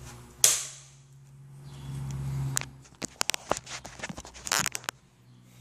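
Handling sounds: a sharp click about half a second in, a short rustle, then a run of irregular light clicks and knocks as a phone camera and a sectioned kayak paddle are handled.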